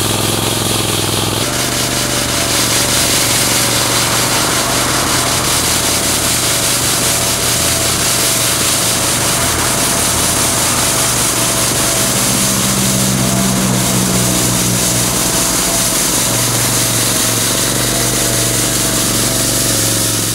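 Avant compact loader running steadily while its front-mounted rotary brush sweeper spins against the asphalt. An engine drone is heard under a dense, scratchy brushing noise. The sound shifts slightly about a second and a half in.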